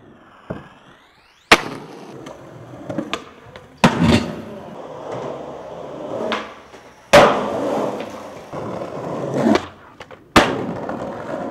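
Skateboard wheels rolling on concrete, broken by several sharp clacks of the board popping and landing, the loudest about a second and a half in and about seven seconds in.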